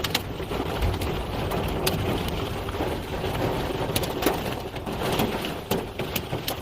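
Dust-storm wind buffeting the car, heard from inside, with scattered sharp ticks of small particles striking the body and windows.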